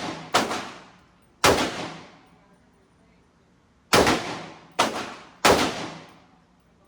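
Five rifle shots from a .300 Blackout AR pistol with a 7.5-inch barrel, each followed by a fading echo: two about a second apart near the start, then three in quicker succession from about four seconds in.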